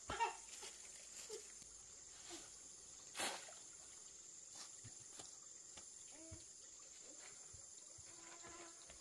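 Faint outdoor ambience: a steady high-pitched insect drone, a few scattered knocks with the loudest about three seconds in, and a few short chirping animal calls.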